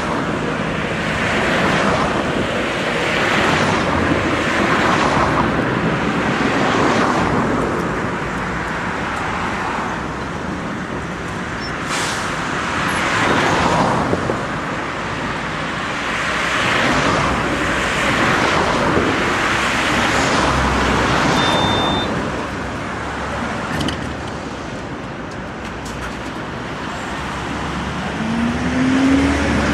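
Road traffic noise, cars passing one after another in swells, with a tram at the stop. Near the end a tram's motors whine, rising in pitch as it pulls away close by.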